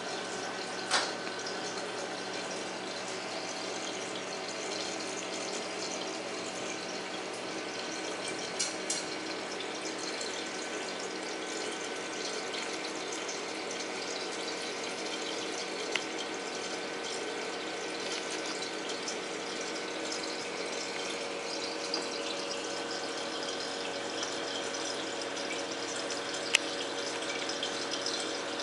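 Saltwater reef aquarium's circulation pumps running: a steady rush of moving water with a constant pump hum. A few short, sharp clicks now and then.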